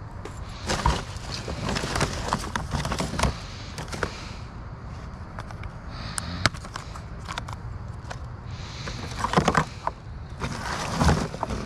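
Rummaging through a curbside pile of discarded household items: rustling with scattered knocks and clatters as things are picked up and moved.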